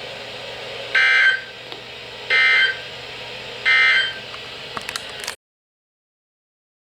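Three short bursts of NOAA Weather Radio SAME data tones, about 1.3 s apart: the end-of-message code that closes an Emergency Alert System broadcast. Faint radio hiss runs between the bursts, and the audio cuts off abruptly about five seconds in.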